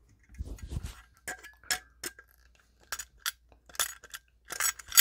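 Pliers working a knockout tab off a steel octagon electrical box: a series of sharp metallic clicks and clinks, a few ringing briefly, clustering most loudly near the end.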